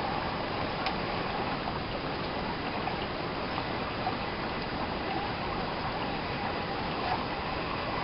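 Creek water running steadily, a continuous trickling rush with a few faint ticks.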